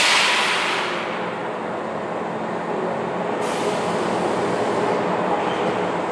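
Compressed air hissing out of a stationary Kintetsu 16200 series 'Blue Symphony' train, heard from inside the car: a sudden loud burst at the start that fades over about a second. It sits over the steady hum of the train's onboard equipment, and a softer hiss rises about three and a half seconds in.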